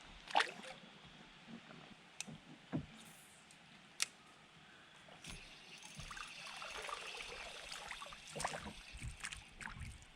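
A few sharp knocks on a canoe, then from about halfway water splashing and sloshing as a small green sunfish is reeled in alongside the boat.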